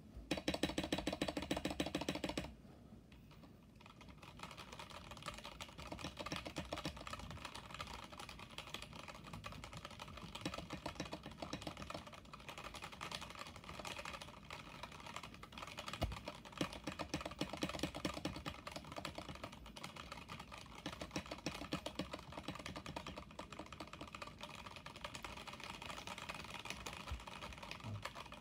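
Stock Kemove Shadow mechanical keyboard being typed on: a steady, rapid run of key clacks. There is a louder, denser flurry of keystrokes for about the first two seconds.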